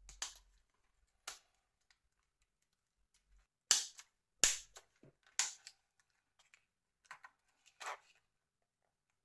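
About seven sharp plastic clicks at irregular intervals, the loudest near the middle, as the keypad buttons and housing of a Nokia 2720a flip phone are pressed and snapped into place during reassembly.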